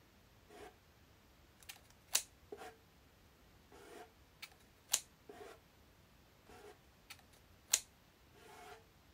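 Scissors snipping paper: three sharp, short snips about three seconds apart, with softer paper rustles in between.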